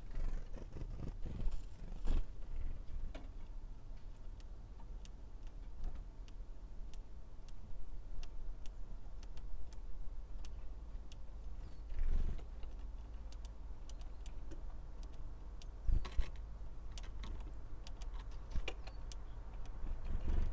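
Great tits at a wooden feeder tray and spruce branch: scattered light clicks and taps of beaks and claws over a steady low outdoor rumble, with two louder bumps about twelve and sixteen seconds in.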